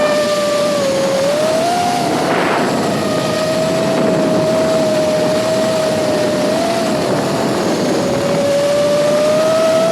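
FPV quadcopter drone's electric motors and propellers whining at a steady pitch that dips and rises slightly with the throttle, over a steady hiss, with a short burst of noise about two and a half seconds in.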